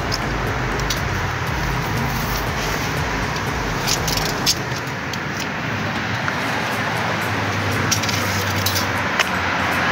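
Steady rushing background noise, with a few short light metallic clicks of pliers and tie wire on rebar, mostly near the end.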